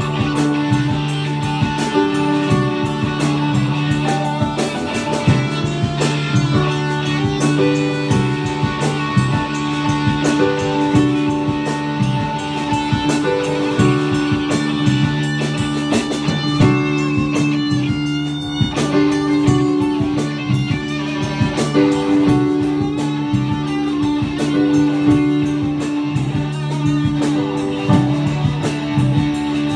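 Live blues-rock band playing an instrumental passage: electric guitar over keyboard and drums, with no singing.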